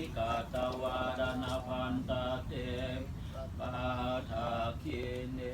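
Buddhist monks chanting a blessing: a steady, sung recitation on held notes, broken into short phrases.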